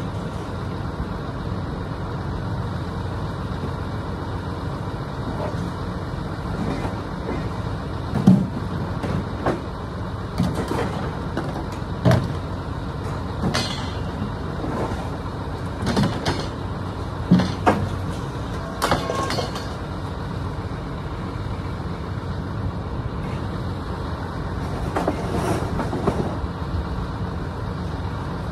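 A motor vehicle running steadily, with scattered sharp clanks and knocks, most of them in the middle stretch and a few near the end.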